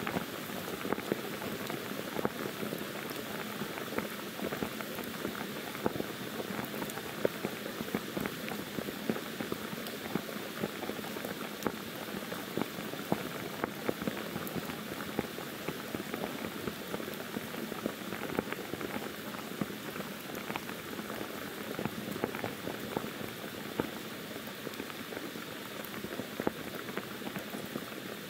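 Pouring monsoon rain, a steady, dense patter of many drops with sharper single drops ticking through it.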